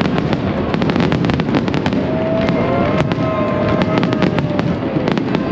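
Fireworks display: a dense, continuous run of overlapping bangs and crackles.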